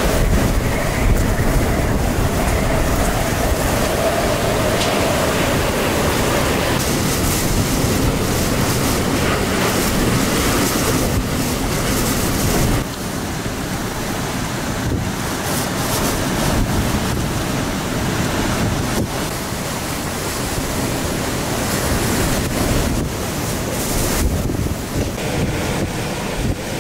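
Category 4 hurricane eyewall winds with driving rain: a loud, steady rush, the wind buffeting the microphone. The level drops slightly about halfway through.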